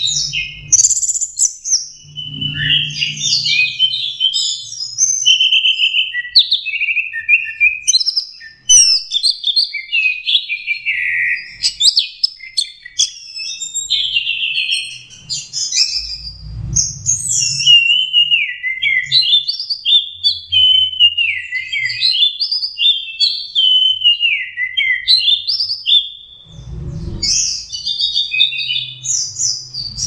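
Orange-headed thrush (anis merah, punglor) in full song, singing 'teler': a long, unbroken string of rapid, varied whistled phrases with no pauses. The song is packed with sharp high notes and mimicked fills.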